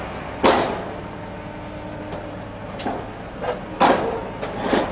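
Excavator-mounted Promove SC2200 hydraulic scrap shear cutting a steel guardrail post, with sharp metal cracks and bangs as the jaws bite through. The loudest crack comes about half a second in, and a cluster follows near the end, over the steady hum of the excavator running.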